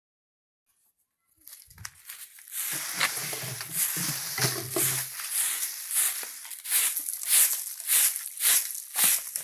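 Broom sweeping litter across a floor in brisk scraping strokes, starting about a second and a half in and settling into a steady rhythm of about two strokes a second.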